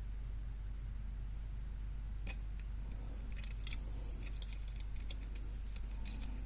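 Small metallic clicks and light rattles from handling the freshly picked antique Hobbs four-lever lock and its picking tools, starting about two seconds in and coming more often toward the end, over a steady low hum.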